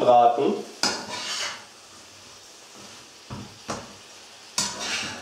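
A spatula scraping and knocking against a frying pan as turkey strips and chopped vegetables are stirred while they fry: a few separate strokes, the longest about a second in and near the end.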